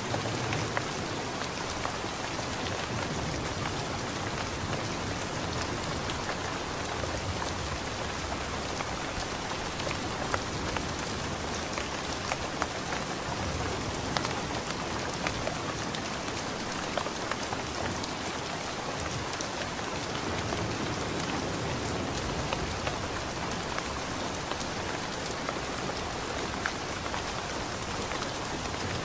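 Steady rain falling: an even hiss with many separate drops tapping through it.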